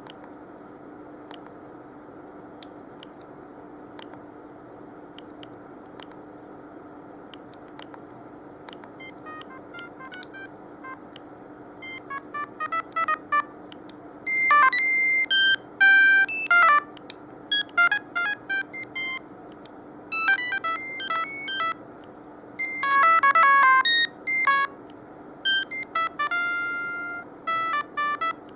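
Siemens C65 mobile phone playing its built-in ringtones through its small speaker: short electronic melodies of beeping notes, one after another, each cut off after a few seconds. They start faintly about nine seconds in. Before that only a steady low hum with faint regular clicks is heard.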